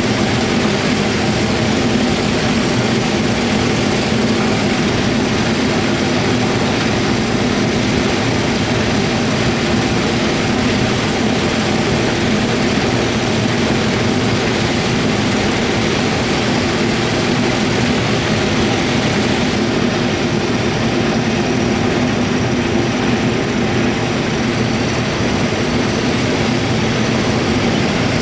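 Corn sheller and the engine driving it running steadily under load, a loud, unchanging mechanical noise with a low hum.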